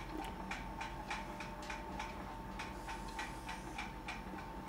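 Faint, regular ticking, about three ticks a second, over a faint steady hum and a thin high tone.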